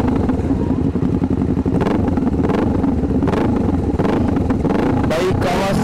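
Kawasaki sport bike's engine running loudly and being revved by a child's hand on the throttle.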